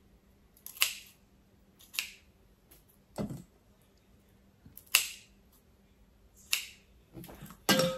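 Kitchen scissors snipping tiny shrimp: five sharp snips spaced a second or more apart, with a duller thump about three seconds in. The last snip, near the end, carries a short metallic ring.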